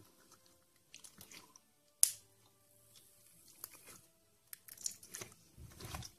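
Clear glue-and-borax slime being squeezed and stretched by hand, giving scattered wet clicks and pops as trapped air bubbles burst, with one sharper pop about two seconds in and a run of clicks near the end.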